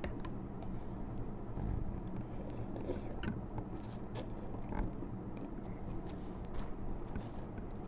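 Mouth eating sounds: thin noodles being slurped and chewed, with a few light clicks scattered through.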